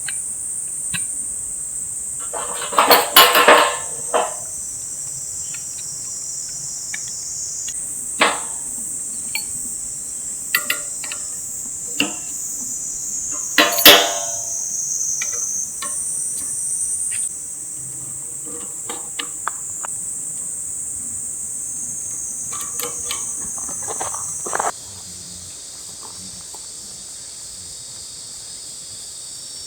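A steady, high-pitched chorus of insects in a summer forest, changing abruptly a few times and dropping in level near the end. Scattered knocks and clatters break through it, loudest in a cluster about three seconds in and again about fourteen seconds in.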